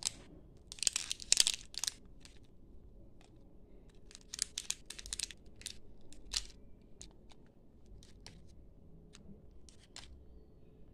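Crinkling of small plastic candy wrappers as the wrapped sweets are handled and set down on a plastic lid. It comes in two short bursts, about a second in and again around four seconds in, followed by a few light ticks.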